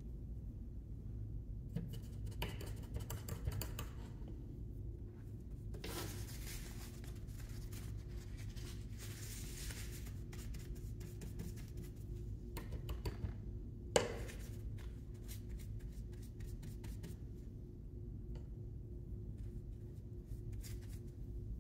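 Paintbrush bristles scratching across a canvas and a paper towel rubbing, in irregular spells of scratchy brushing, with one sharp tap about two-thirds through, over a steady low hum.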